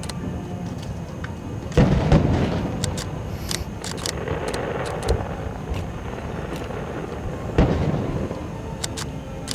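Aerial fireworks going off: deep booms about two seconds in and again near the end, with scattered sharp crackling pops between them.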